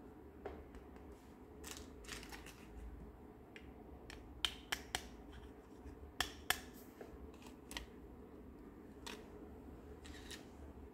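Hard plastic toy vegetables clicking and tapping against each other and against a plastic toy shopping cart as they are handled and put in. A scatter of sharp clicks, the loudest a quick run of them in the middle.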